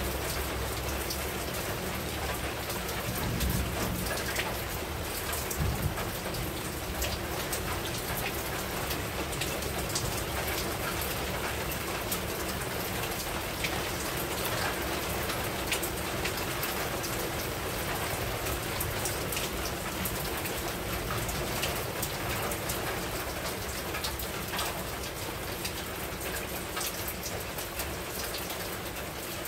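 Steady rain falling, with many sharp drop impacts on a surface throughout.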